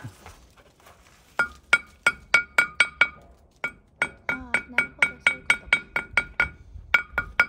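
Steel hammer tapping a wire end sticking out of a concrete fence post to drive it back in: about twenty quick metallic strikes, about three a second, each with a short clinking ring. They start about a second and a half in, with a brief pause near the middle.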